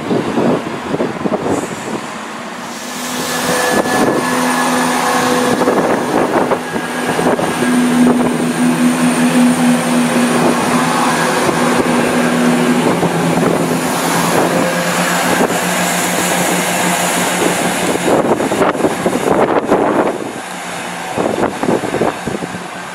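Class 170 Turbostar diesel multiple unit moving through the station, its underfloor diesel engines running with a steady drone and whine. The sound swells about three seconds in and falls away near the end.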